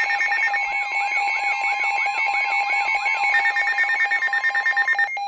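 Weather alert radio alarms sounding for a Severe Thunderstorm Warning: overlapping steady tones, fast beeping and a warbling siren-like rise and fall repeating about twice a second. The warble gives way to a different beep pattern a little past halfway, and all the alarms cut off just before the end.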